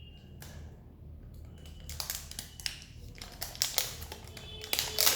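Plastic packaging on a new phone being peeled and handled: irregular crinkling and sharp crackles, getting busier and louder about two seconds in, with the loudest crackles near the end.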